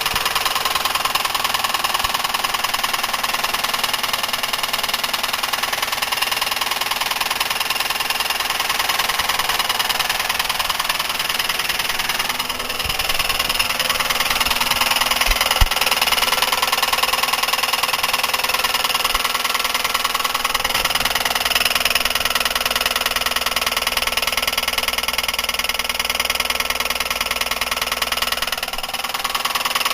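Buick 3800 3.8 L V6 engine idling with a steady, rapid knock. The knock comes from the small end of a connecting rod, a worn wrist pin and piston, not from the lifters or rod bearings.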